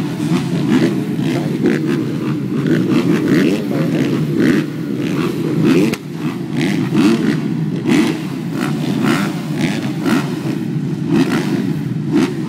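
A full line of motocross bikes at the starting gate, many engines revving at once with their pitches wavering up and down, held on the throttle while waiting for the gate to drop.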